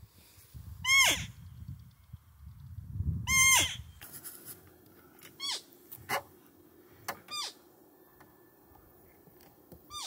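Roe deer call (Blatter) blown in short, high fiep notes imitating a roe doe, the lure of a buck-calling hunt: two loud calls about a second and three seconds in, then several softer ones, each dropping in pitch at its end.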